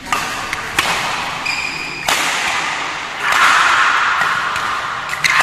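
Badminton doubles rally on an indoor court: several sharp racket strikes on the shuttlecock and a brief shoe squeak on the court floor. A broad noise of spectators grows louder about three seconds in.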